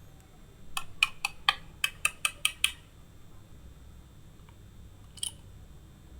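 Wooden toy food cutting set: a quick run of about nine sharp clicks over two seconds, then a single click about two and a half seconds later.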